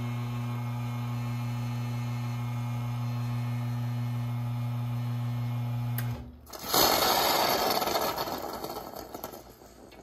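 The rotary pump of a Rocket Giotto Evoluzione R espresso machine runs with a steady hum while the shot pulls, then cuts off about six seconds in. A loud hiss follows as the three-way valve vents the group's pressure, fading away over about three seconds.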